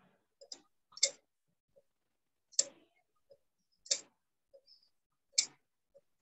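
Sharp clicks repeating roughly every second and a half, each louder click coming just after a fainter one, picked up over an unmuted microphone on an online call.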